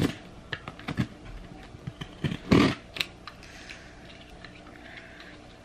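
Box cutter slicing the packing tape on a cardboard shipping box, with scattered clicks and taps of the knife and cardboard and two louder strokes, one at the very start and one about two and a half seconds in.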